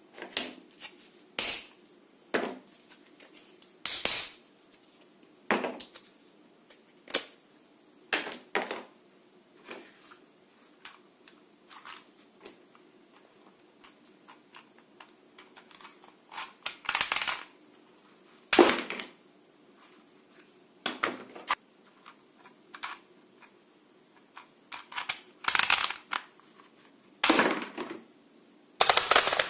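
Plastic toy guns being handled and clicked: irregular sharp snaps and clicks, some loud, with spells of faint ticking between them.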